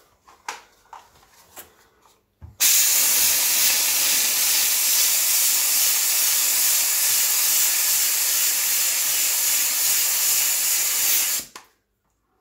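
Kärcher steam cleaner with its strongest point nozzle blasting a continuous jet of steam onto a grease stain: a loud, steady hiss that starts about two and a half seconds in, runs for about nine seconds and cuts off suddenly. A few faint clicks come before it.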